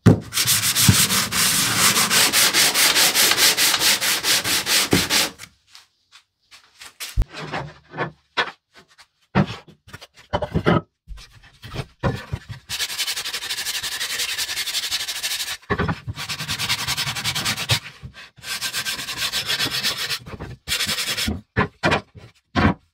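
Sandpaper on a homemade wooden hand sanding block, fitted with a hook-and-loop pad salvaged from an orbital sander, rubbed back and forth on wood in quick, even strokes. The strokes come in several bursts. Between the first two bursts there is a run of scattered knocks as wooden boards are handled.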